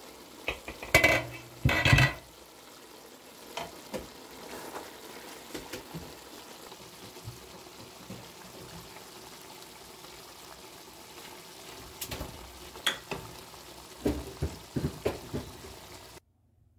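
A pot of cauliflower in tomato sauce simmering with a low steady sizzle on a gas stove. Two loud clunks of cookware come about one and two seconds in, and near the end a spatula clicks and scrapes against the pot as the stew is stirred.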